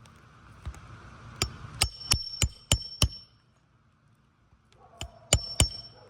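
Hammer driving roofing nails back into a reinstalled asphalt shingle: a run of six quick ringing metal blows about three a second, a pause, then three more blows near the end.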